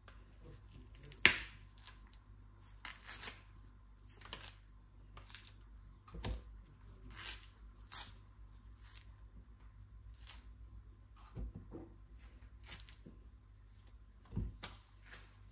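Scattered clicks, taps and rustles of things being handled, with one sharp click about a second in and a few duller knocks later, over a faint low hum.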